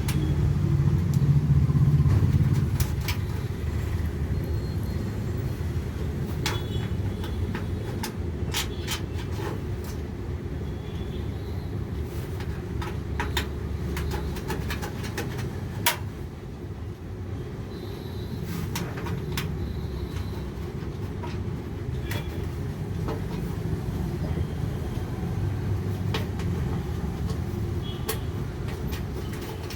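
Scattered small metallic clicks and taps of brass motherboard standoff screws being handled and screwed into a steel PC case, one louder click about halfway through, over a steady low rumble.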